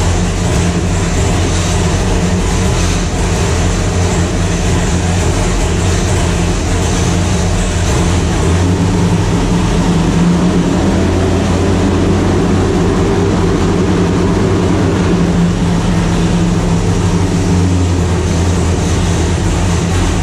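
A 565-cubic-inch fuel-injected cross-ram big-block V8 running steadily on an engine dyno. The deep, even exhaust note holds at a near-constant speed with no revving.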